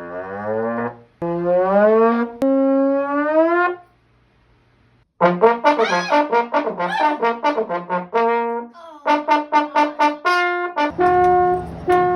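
Brass instrument, trombone-like, playing music: long notes that slide upward, then after a short pause a fast run of short notes, then short notes repeated evenly.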